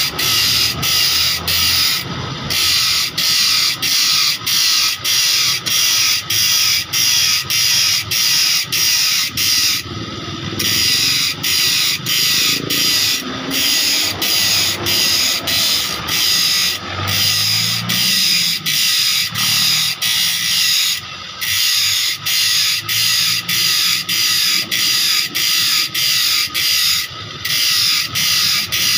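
Thin abrasive disc on a motor-driven grinder cutting new teeth into a steel handsaw blade: a loud, screechy grind over a steady whine, broken by short gaps about twice a second as the blade is fed tooth by tooth, with a few longer pauses.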